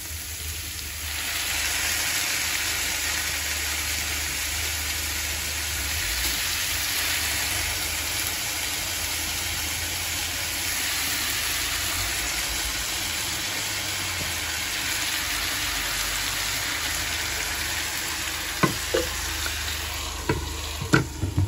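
Chicken and mushrooms sizzling steadily in a frying pan, the sizzle swelling about a second in as the ladled pasta water hits the hot pan. A few sharp clinks of cookware near the end.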